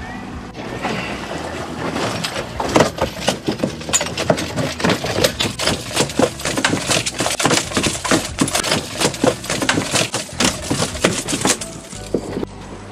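Freshly landed wahoo thrashing on the fibreglass deck of the boat, its body and tail slapping in a rapid, irregular run of loud knocks that stops shortly before the end.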